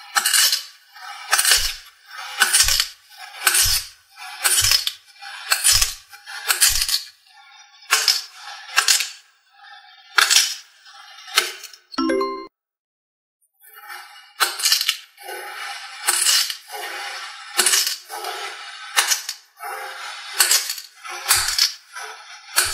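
A knife slicing through moulded kinetic sand: each cut a short gritty hiss, about one a second. A brief ringing tone about twelve seconds in, a second of silence, then the cuts come quicker and closer together.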